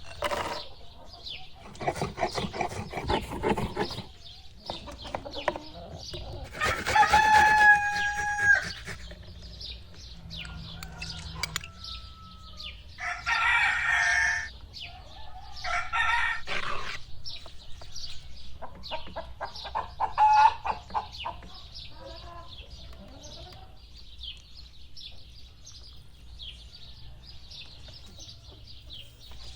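Chickens clucking, with a rooster crowing loudly several times in the first twenty seconds; after that the fowl go quieter and only faint chirping remains.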